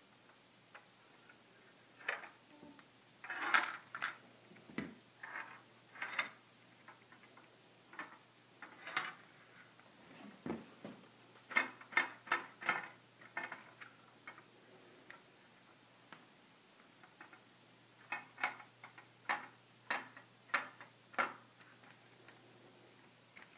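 Perplexus Epic maze sphere turned in the hands: the small ball inside rolls and drops along the hard plastic track, giving irregular clicks and clacks, some in quick runs of several.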